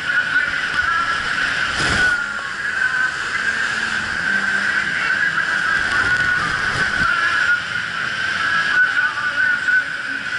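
Longline fishing boat under way: a steady mechanical whine over the rush of the wake water, with a single knock about two seconds in.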